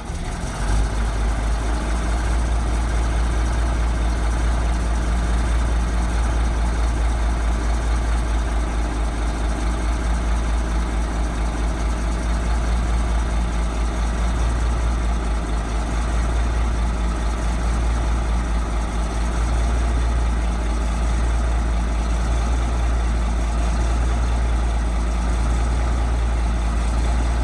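Komatsu D475A bulldozer's V12 diesel engine running steadily at idle, a deep, even rumble.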